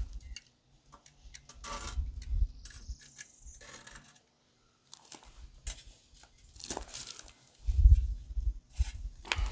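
Metal tongs scraping and tapping as charcoal briquettes are pushed under a cast-iron Dutch oven on a steel plate: a few separate scrapes and crunches, with a low rumble about eight seconds in.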